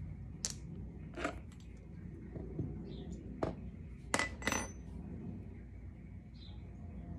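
Metal hand tool clicking and clinking against a roller skate's axle nut and wheel hardware as a wheel is taken off: several sharp separate clicks, the loudest two coming close together about four seconds in and ringing briefly.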